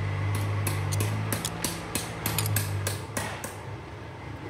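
Light metal knocks and taps in a workshop, about three a second, over a low steady hum that dies away about three seconds in.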